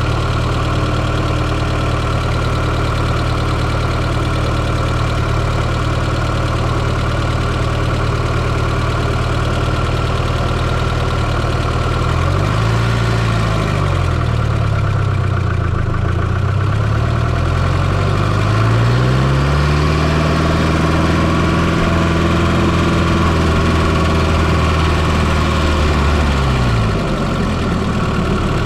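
1995 Fiat Coupe 2.0 16V turbo four-cylinder engine, heard from inside the engine bay, idling steadily. About halfway through it is revved in a quick rise and fall, then revved again and held at higher revs for several seconds before dropping back to idle near the end.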